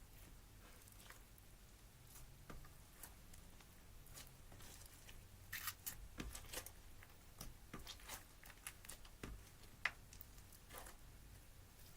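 Slime being squeezed and worked by hand: faint, irregular sticky clicks and little pops, busier in the middle of the stretch.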